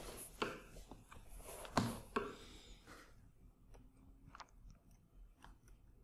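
Quiet handling noise: a few soft rustles and sharp knocks in the first half, the loudest just before two seconds in. Then faint, irregular light clicks of a stylus tapping on a tablet screen as a word is written.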